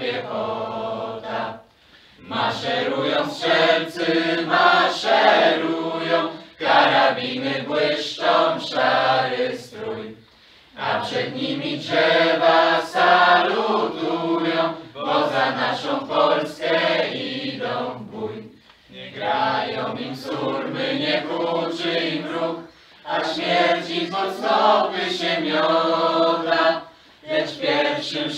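Group of young women and men singing a song together as a choir, in phrases separated by short pauses.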